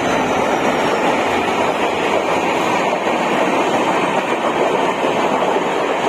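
Train running on the tracks: a loud, steady rolling noise of wheels on rails.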